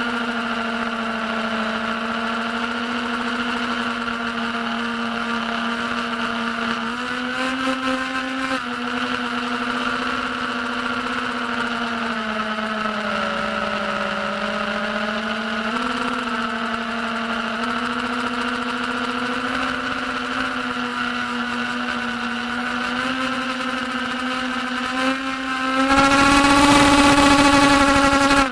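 Diatone Tyrant S FPV quadcopter's brushless motors running with a steady whine that drifts gently up and down in pitch with the throttle. Near the end a burst of throttle makes it louder and higher, with a rush of noise.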